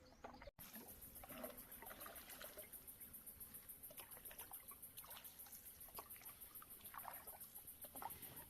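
Faint canoe paddling: soft water sounds of paddle strokes, with trickling and dripping water.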